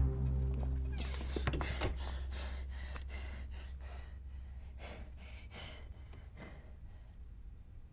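A man panting in quick, short breaths, about two a second. Under it, a low musical drone fades away.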